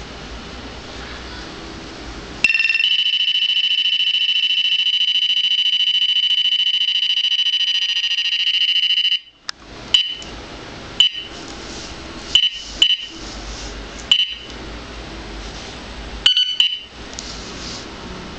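Radar detector alert: one loud, steady, high tone lasting about seven seconds that cuts off suddenly, followed by a string of short beeps, some in quick pairs. The detector is being set off by radar-detector leakage from the other detector beside it.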